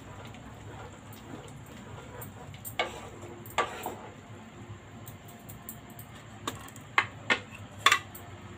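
Wooden spatula stirring a thick noodle soup in a metal pan, with a handful of sharp knocks and clicks of the spatula against the pan, most of them in the second half, over a steady low hum.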